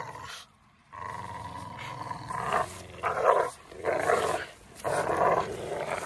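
American bully dogs growling while they bite and pull on a jute tug rag, the growls surging loudly about four times in the second half.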